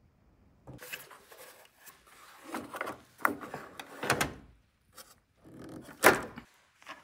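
Clicks, rattles and knocks of a Craftsman 10-inch job site table saw's blade bevel being adjusted by hand toward 45 degrees, with the loudest clunk about six seconds in.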